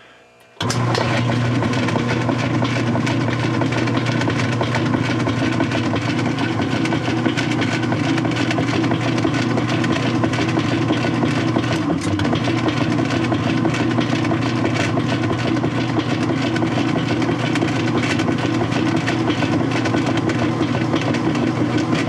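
Whirlpool direct-drive top-load washer's motor kicking on about half a second in and agitating the empty, dry tub: a steady hum with a fast, busy rattle. It agitates because the water level pressure switch has been tricked into reading the tub as full.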